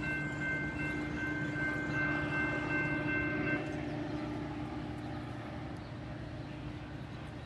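Railroad grade-crossing bells ringing steadily, stopping about three and a half seconds in, over the low, steady rumble of a train that fades toward the end.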